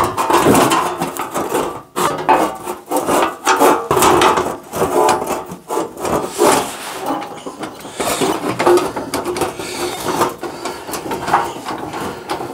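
Handlebars being tried in place on a mini tractor's metal frame by hand: steady scraping and rubbing with many small clunks and knocks of parts against one another.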